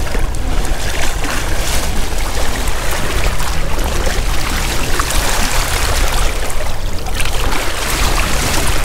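Water splashing and rushing against the side of a boat as a striped bass is held in the water alongside for release, with a steady low rumble underneath.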